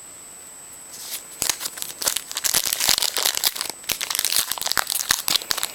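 Trading-card pack wrapper crinkling and tearing as it is opened by hand: a rapid, irregular crackle that starts about a second in and runs on with a short lull midway.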